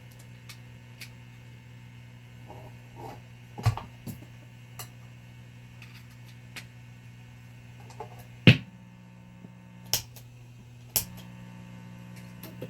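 Guitar amplifier's steady mains hum, with scattered clicks and pops, a handful of them sharp and loud.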